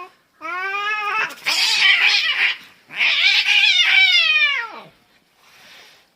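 Domestic cat yowling a fight threat: two long, rough caterwauls, the first rising in pitch and the second sliding down at its end.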